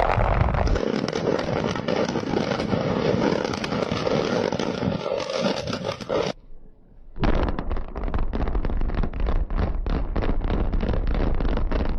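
Demolition noise: a dense rush of collapsing rubble and debris, which breaks off about six seconds in. A second stretch follows, a rapid crackling clatter of debris over a low rumble.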